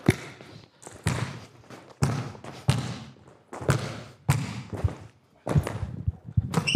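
A basketball bouncing on a hard gym floor, a thud about once a second and a little irregular, each echoing in the large hall. There is a brief high squeak near the end.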